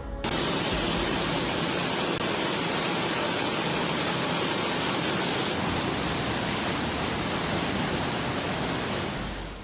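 Steady rushing storm noise, an even hiss across all pitches that starts abruptly, shifts slightly about five and a half seconds in and fades out near the end.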